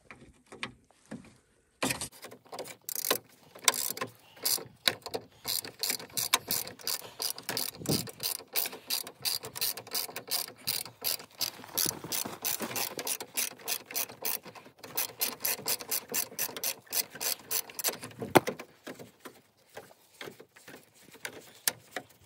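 Hand socket ratchet turning a bolt on the van's front-end support, its pawl clicking in quick repeated runs as the handle is swung back and forth. The clicking starts about two seconds in, and one sharper click stands out near the end.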